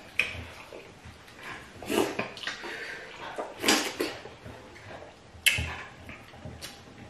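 Wet eating sounds from people eating fufu and okra soup by hand: a few separate smacking, slurping bursts about every second and a half to two seconds, the loudest around the middle.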